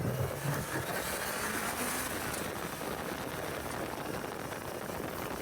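Motorcycle riding noise: heavy wind rush over the microphone with the Suzuki GSX1100G's 1,127 cc inline-four running underneath. It cuts in abruptly and then holds steady.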